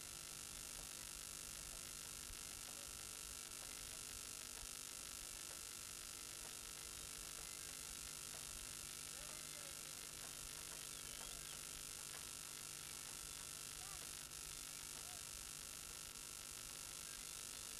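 Steady background hiss and electrical hum, with a few faint, brief distant sounds.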